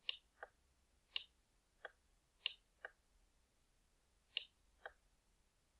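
Computer mouse button clicking: four press-and-release pairs, each a higher click followed a fraction of a second later by a lower one, as items are dragged on screen.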